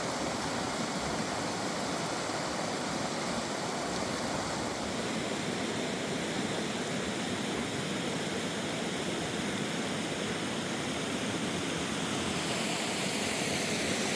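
Steady rush of falling water, an even unbroken roar.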